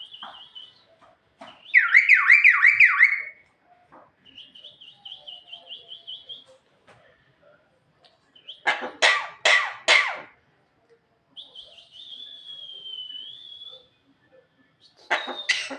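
Javan myna giving a string of varied calls. About two seconds in comes a loud, fast quavering warble, then quieter rapid trills. Around nine seconds there are four harsh cough-like rasps, followed by a wavering whistled note and another harsh burst near the end.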